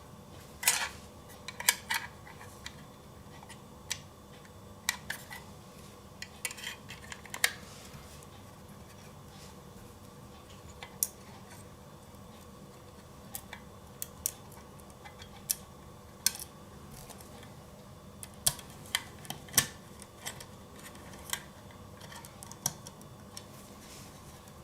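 Irregular small metallic clicks and taps as a 2.5-inch SSD is handled and fitted into a laptop's metal hard-drive bracket, with its small screws.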